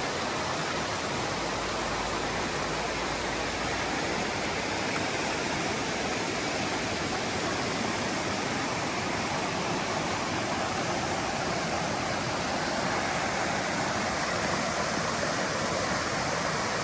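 Steady rush of a mountain stream and small waterfall, water pouring over rocks in an even, unbroken roar.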